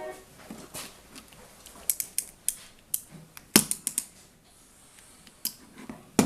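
Irregular light clicks and taps of a small plastic Molex connector and its wires being handled and fitted, about a dozen sharp ticks with the loudest about halfway through.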